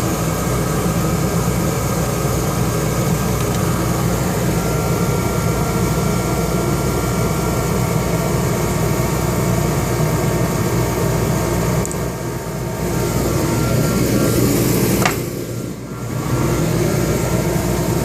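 A steady mechanical drone of a running machine, with a low hum and several steady tones. The level dips briefly twice, and a short rising squeak comes near the end.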